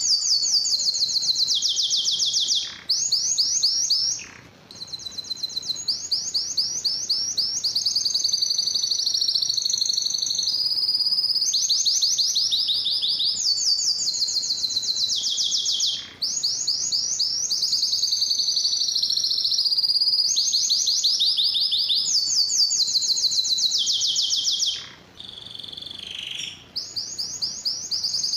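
Male domestic canary singing a long song of fast trills, each a rapid run of repeated high notes, switching to a new trill every second or two, with brief breaks about 3, 4, 16 and 25 seconds in.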